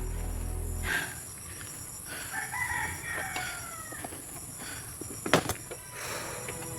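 Rooster crowing once, a drawn-out call that falls in pitch toward its end. A single sharp click is heard a few seconds later.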